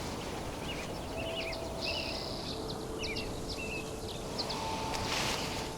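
Birds chirping, with short, high calls and trills repeating at irregular intervals over a steady outdoor hiss.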